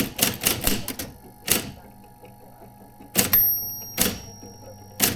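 Adler Junior Electric typewriter typing: irregular key strikes come in a quick run, then singly after a pause. After a heavier strike a thin high whine sounds for nearly two seconds.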